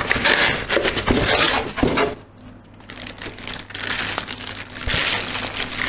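Rustling and crinkling of unboxing packaging: a fabric drawstring pouch, cardboard box and plastic wrap handled by hand, with a short lull a little over two seconds in.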